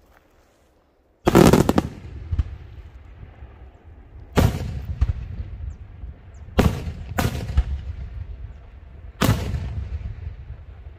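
Daytime aerial fireworks: shells bursting overhead in loud bangs, the first just over a second in and four more a second or two apart, each followed by a rumbling echo, with a few smaller pops in between.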